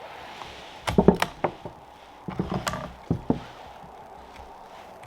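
Clicks and knocks from a bolt-action .22 rimfire rifle being handled before firing. The sharp handling sounds come in three short clusters, about one, two and a half and three seconds in.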